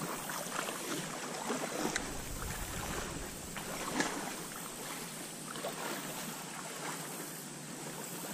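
Shallow stream water running and lapping around wading legs, with faint wind on the microphone and scattered small ticks; one brief sharp sound stands out about four seconds in.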